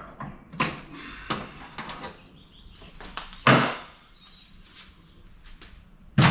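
Metal knocks and clanks from tools and sheet-metal parts while an old air conditioner is dismantled for scrap. A few light knocks come in the first two seconds, a heavier ringing clank about three and a half seconds in, and a sharp bang near the end.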